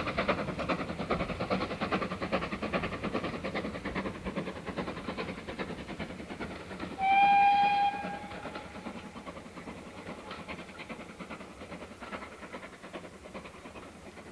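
Steam train moving away, its rhythmic chuffing and wheel clatter fading steadily, with one short steam whistle blast about seven seconds in.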